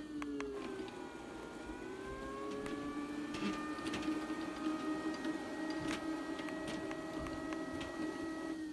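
Aposen A450 robot vacuum running with a steady motor whine that dips and rises in pitch as it is steered by its remote's arrow buttons, with a few light clicks.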